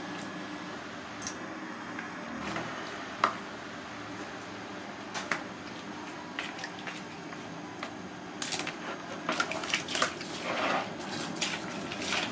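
Water sloshing and splashing in a plastic basin as a skinned snake carcass is washed by hand, with a few sharp clicks and clinks, over a steady low hum. The splashing gets busier from about eight seconds in.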